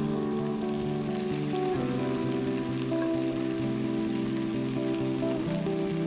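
Background music of slow, held chords over a steady sizzle of mushrooms and bacon frying in a cast-iron pot over a campfire.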